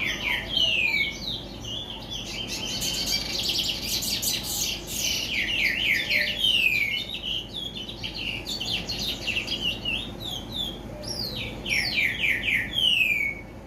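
A curió (chestnut-bellied seed-finch) singing a long, continuous song of loud downward-slurred whistles mixed with quick trills, stopping near the end.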